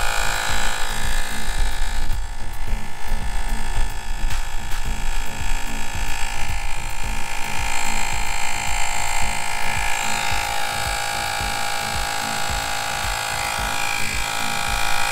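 Cordless rechargeable mini air compressor running steadily with a fast pulsing whine as it pumps up a bicycle tire through a Presta valve adapter, working toward its preset pressure.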